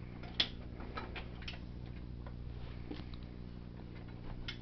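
Scattered light clicks and ticks of hands and a tool working the mower's plastic shifter lever and cable loose, one sharper click about half a second in, over a faint low hum.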